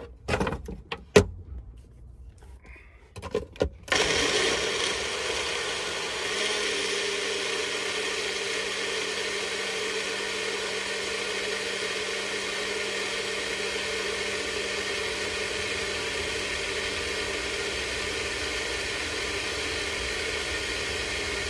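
A few knocks and clicks, then from about four seconds in an electric blender motor runs steadily, blending a fruit smoothie, until it stops at the end.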